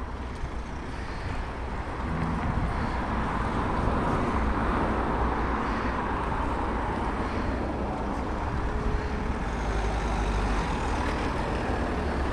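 A car's engine and tyres as a small SUV drives slowly across a concrete yard and turns, with a steady low engine rumble underneath; the sound grows louder about two seconds in.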